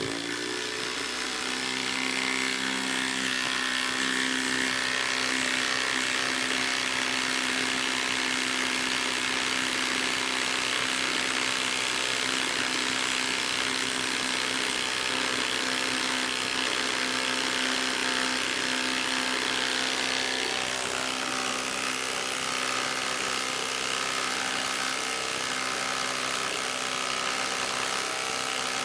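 Ridgid Octane quarter-inch hex impact driver hammering without a break as it drives a lag screw into a wooden round. The pitch of its rattle drops a little about two-thirds of the way through.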